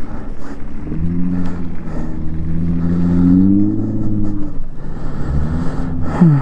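Daymak Pithog Max e-bike's electric motor whining, rising in pitch as the bike speeds up and fading out about four and a half seconds in, over a steady low wind rumble on the microphone.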